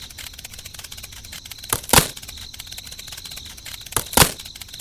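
Two pairs of sharp clicks, one about two seconds in and another about four seconds in, over a steady, fast ticking background with a high, thin tone.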